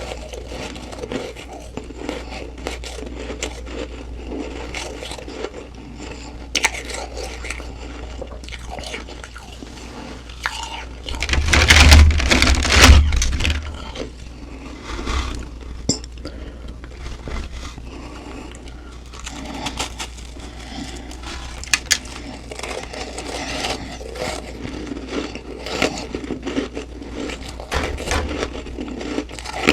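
Humidifier frost being bitten and crunched close to the microphone: an irregular crackling crunch, with a much louder stretch of crunching for about two seconds near the middle.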